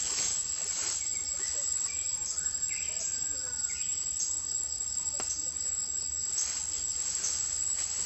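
Steady high, continuous buzz of an insect chorus in the forest, with a few short faint chirps in the middle.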